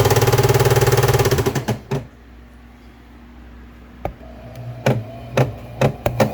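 Old electric Singer sewing machine running fast on its foot pedal, the needle clattering rapidly. It stops about two seconds in, then makes a few single slow strokes as the pedal is eased, and speeds up again at the very end.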